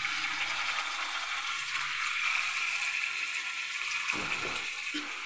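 Raw chicken pieces sizzling in hot oil with onions in a frying pan: a steady sizzle that starts as the chicken goes in, with a brief low thump about four seconds in.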